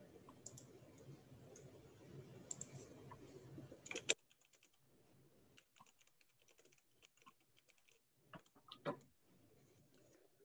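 Faint clicks and taps of a computer keyboard and mouse over a low hiss, with a louder cluster of clicks about four seconds in and another near nine seconds. The hiss drops away after the first cluster.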